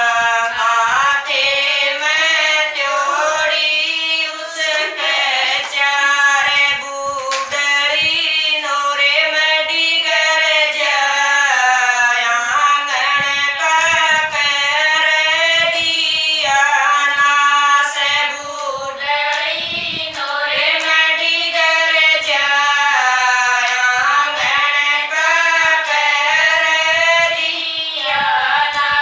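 Women singing a Haryanvi devotional bhajan together, a folk melody sung in continuous phrases with short breaths between lines.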